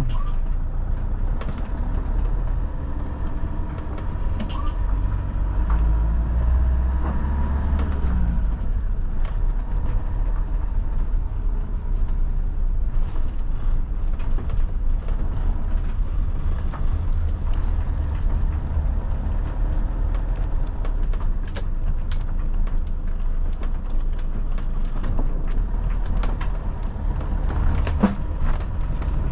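Camper driving on the road: a steady low rumble of engine and tyres with scattered light clicks and rattles.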